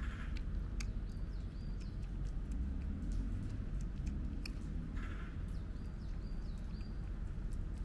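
Cat eating food off the ground, its chewing heard as scattered crisp clicks over a steady low rumble, with two faint chirps in between.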